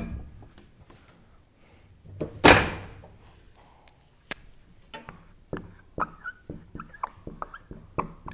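A large flip-chart sheet is flipped over the top of the easel with one loud rustling thunk about two and a half seconds in. Then a marker writes on the fresh paper in a run of short, sharp strokes, some of them squeaking.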